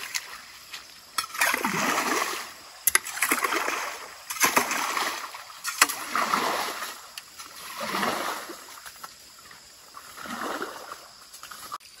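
Shovel scraping and splashing through mud and muddy water in a shallow drainage ditch, in repeated strokes, about six of them, one every one and a half to two seconds.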